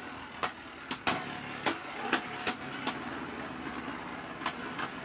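Two Beyblade Burst spinning tops, Kinetic Satomb and Blast Genius, whirring in a plastic stadium and clacking against each other in sharp hits, several in the first three seconds and a couple more near the end.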